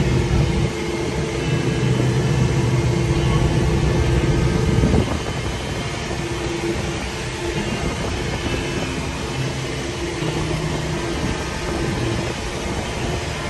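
John Deere 4052R compact tractor's three-cylinder turbo-diesel engine running steadily, getting a little quieter about five seconds in.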